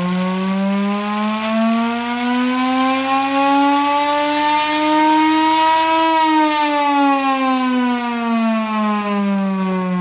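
Chrysler air raid siren, driven by a 180-horsepower Hemi V8, wailing: its pitch rises steadily for about six seconds, then falls away.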